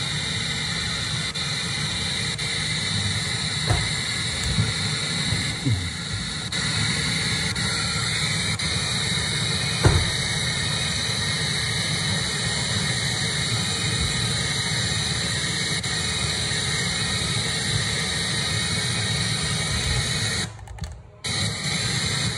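FM radio static hiss from a Bang & Olufsen BeoSound 3, tuned between stations while its presets are stepped through, with a couple of faint ticks. The hiss cuts out briefly near the end as the radio retunes.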